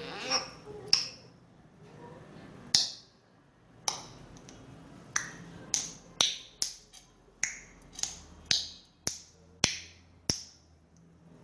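A series of about fifteen sharp clicks or snaps, spaced irregularly and coming faster in the second half.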